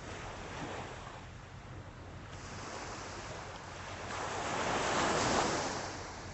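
Small Atlantic waves breaking and washing up the beach, one wave swelling to its loudest about five seconds in and then fading.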